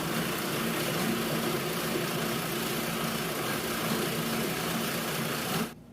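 Small gasoline engine of a Frontier OS27 bandsaw mill running steadily, a low wavering drone under a loud hiss. It starts and stops abruptly.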